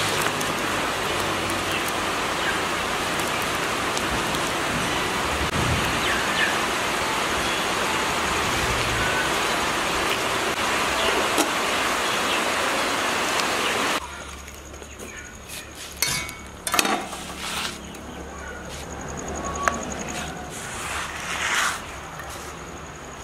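Steady loud rushing of a pot of water boiling hard over the fire. It drops away abruptly about two-thirds of the way through, leaving a quieter background with a few short knocks and clinks of metal cookware.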